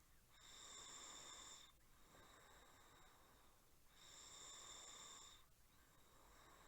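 A person snoring faintly in a slow, even rhythm: two louder snoring breaths of about a second and a half each, about three and a half seconds apart, with a thin high whistle in them and quieter breaths between.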